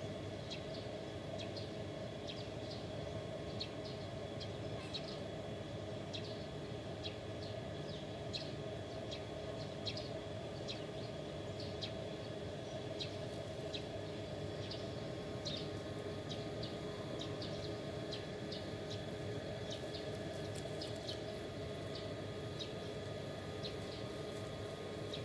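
Outdoor ambience: a steady low rumble of distant traffic, with short high bird chirps recurring irregularly about once a second.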